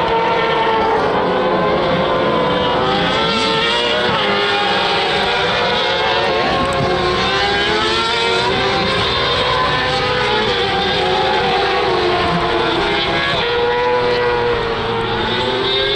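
Several racing sidecar outfits' engines running hard together, their pitches overlapping and rising and falling as the machines brake, shift and accelerate through the corner.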